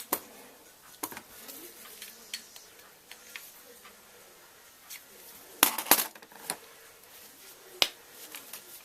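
Small tools and metal parts clicking and clinking during hand work on an RC buggy's rear suspension, in scattered single knocks with a louder burst of clatter about six seconds in and another sharp knock near the end.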